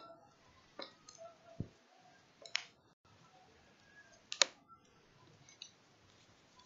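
Quiet handling noise from a hand-held phone, with a few sharp clicks spaced one to two seconds apart and one low knock between the first two.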